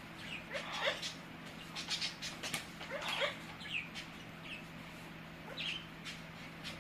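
Amazon parrot giving a series of short squawks and chirps, one every second or so, some gliding in pitch, with a few sharp clicks about two seconds in.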